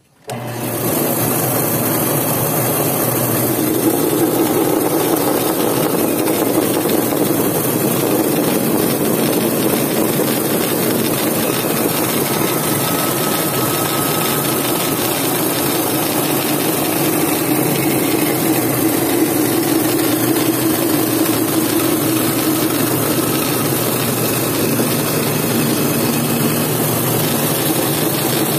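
Electric power tool motor switched on about half a second in, then running steadily under a loud, even noise.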